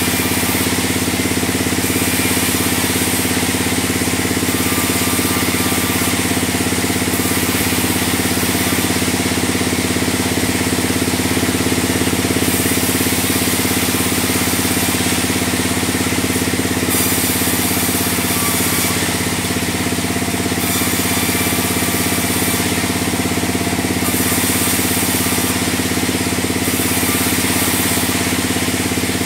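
Band sawmill running steadily, its drive and band blade giving a constant drone with a hiss of sawing over it as logs are cut.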